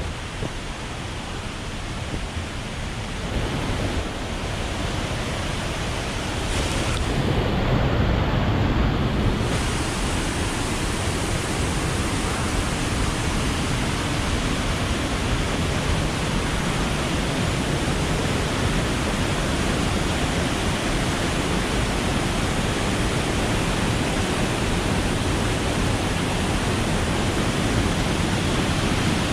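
Steady roar of a waterfall in monsoon flow, an even rushing noise that shifts slightly a few seconds in and then holds steady.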